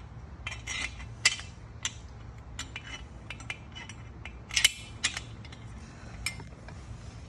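Irregular clicks and clinks of a metal handrail, its spacer and loose bolts and washers being handled and fitted together, with two sharper knocks, one about a second in and one past halfway, over a low steady hum.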